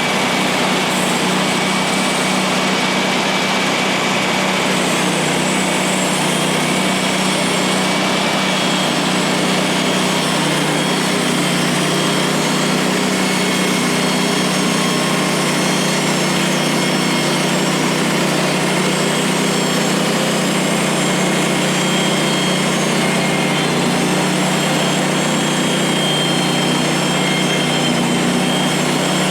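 Woodland Mills HM136MAX portable bandsaw mill running steadily at full throttle as it saws pine into beams, its gas engine's hum joined by a thin, faint whine from the band blade.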